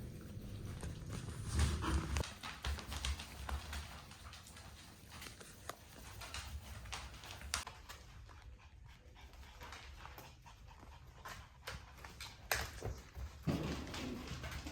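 Shiba Inu puppies playing: scattered light taps, scuffles and clicks from paws and small bodies moving about, with a busier patch of scuffling near the end.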